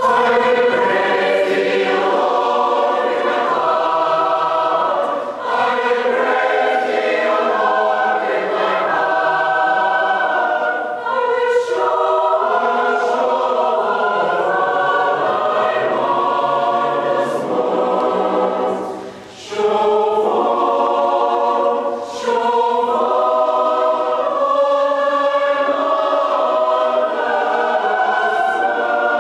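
Large mixed choir of men's and women's voices singing together in harmony. The voices come in together at the start and pause briefly for breath about two-thirds of the way through.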